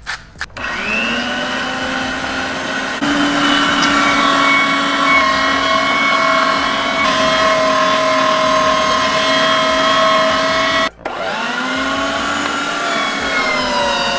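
A few quick clicks of a pepper mill, then an electric meat grinder's motor starts, spins up to speed and runs with a steady whine while grinding seasoned meat. Just before eleven seconds in it cuts out and starts again, rising back to speed.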